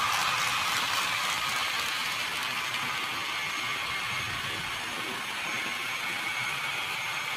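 HO scale model train running along the layout track, giving a steady, even running noise.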